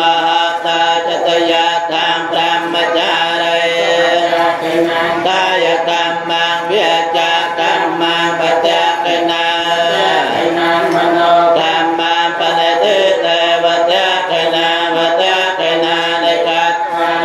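Buddhist paritta chanting in Pali in the Khmer style, the voices reciting continuously on a steady pitch with small melodic turns.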